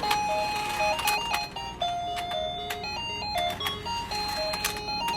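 Background music: a bright, bouncy electronic melody moving in short stepped notes, with a light clicking beat.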